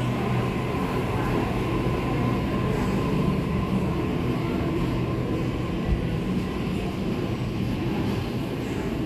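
Sydney electric suburban train running through the station: a steady rumble with a low hum and a faint high tone. A single short knock comes about six seconds in.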